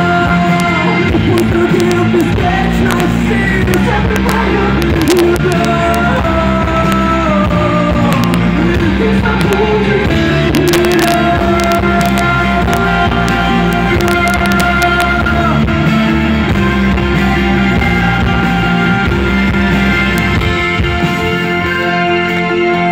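Live rock band playing an instrumental break, long held melody notes over a steady bass and rhythm.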